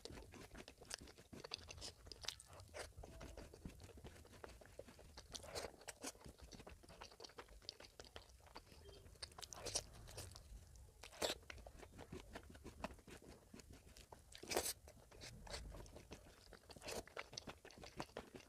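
Close-up chewing and biting on mutton curry: a steady run of small wet mouth clicks, with a handful of louder crunches spread through.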